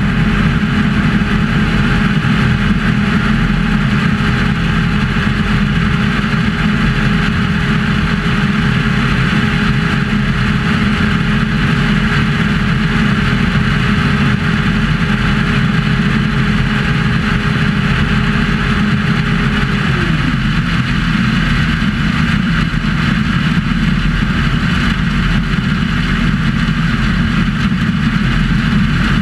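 New Holland CR8070 combine harvester running steadily while harvesting maize, heard from inside the cab. A steady whine in the machine noise drops in pitch about twenty seconds in.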